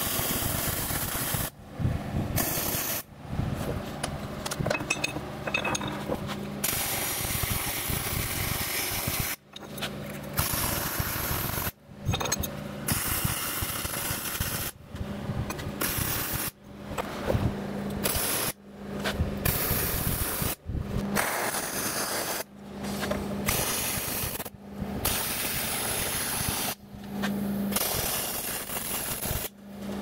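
Wire-feed welder arc on steel: a steady crackle in about a dozen runs, each one to six seconds long, broken by short gaps where the arc stops, with a low steady hum underneath.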